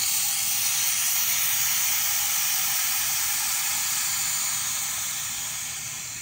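Air hissing into an evacuated vacuum bell jar through its opened vent valve: a loud, steady rush that starts suddenly and tapers off near the end as the pressure inside comes back up to atmospheric.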